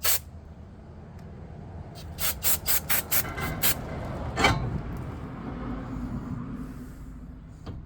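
Wire brush scrubbing a metal brake part in short scraping strokes: one at the start, then a quick run of about seven, about five a second, and one more shortly after.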